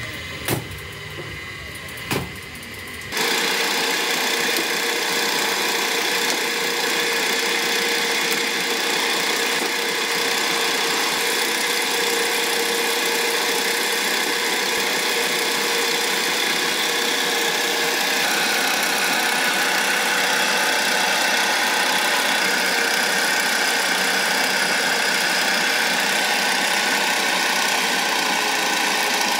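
Motor-driven potter's wheel running steadily: a continuous mechanical whir with a few constant tones, starting suddenly about three seconds in after two brief knocks.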